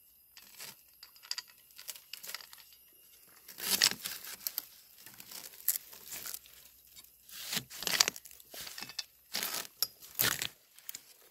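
A knife cutting into the base of a bamboo shoot amid dry bamboo leaf litter: irregular crunching and tearing strokes, with the loudest ones near the end.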